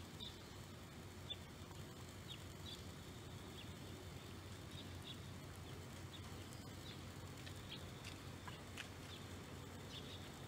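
Faint outdoor ambience: a steady low hum with scattered short, high chirps every second or so.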